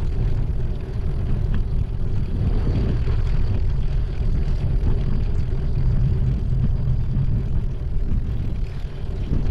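Wind buffeting the microphone of a camera on a moving bicycle: a loud, uneven low rumble.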